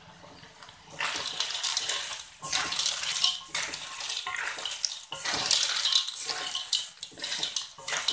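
Small snails in their shells being stirred with a wooden spatula in a metal wok of soy sauce: wet scraping and clattering of shells against the pan in irregular strokes, starting about a second in.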